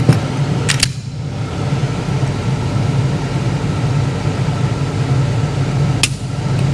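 Sharp clicks from a stock Glock G47 Gen 5's trigger as a trigger pull gauge draws it back until it breaks, once about a second in and again near the end, over a steady low machine hum.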